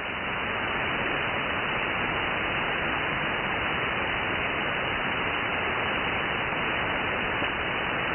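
Shortwave receiver static: steady hiss of an empty band in upper-sideband mode once the station has signed off the air, rising a little in the first second as the receiver's gain recovers, then even.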